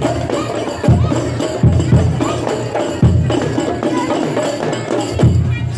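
Rebana frame drums played by a children's ensemble: a rhythmic pattern of deep, booming low strokes with quicker, sharper slaps between them.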